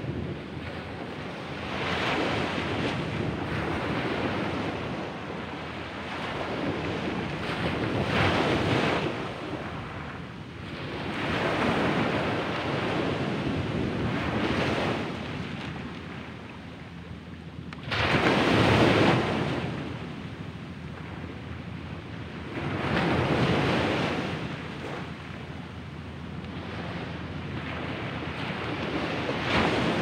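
Small sea waves breaking and washing up a sandy beach, a rushing surge that swells and fades every four to six seconds, the loudest wash about two-thirds of the way through.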